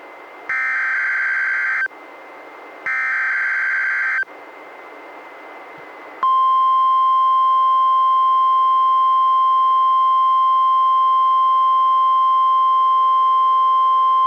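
NOAA Weather Radio emergency alert tones: two short, harsh digital SAME header data bursts with brief gaps between, then, about six seconds in, the steady 1050 Hz weather radio warning alarm tone, opening a Required Monthly Test.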